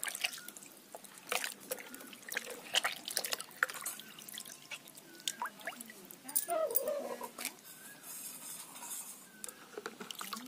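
Water sloshing and splashing in a plastic bucket as small fish are washed by hand, with irregular drips and splashes.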